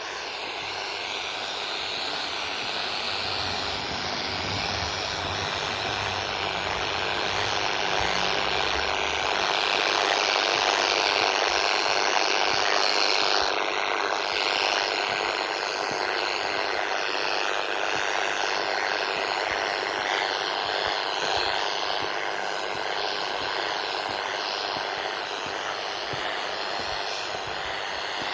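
Radio interference hissing and buzzing from a handheld radio scanner's speaker: a steady wash of static that grows louder about ten seconds in and then eases off. It swells as the scanner passes the neighbouring house, which the owner suspects of radiating the noise.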